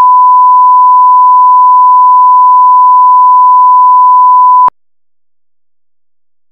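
A 1 kHz line-up test tone of the kind played over colour bars: one loud, steady pure beep that cuts off suddenly a little under five seconds in.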